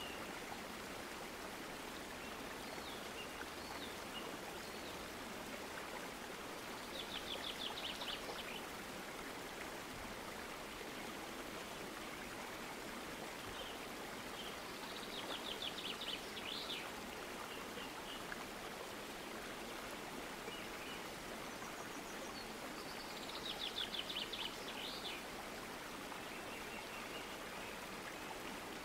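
Steady low hiss of background noise. A bird trills three times, each a quick run of high notes lasting about a second or two, roughly eight seconds apart.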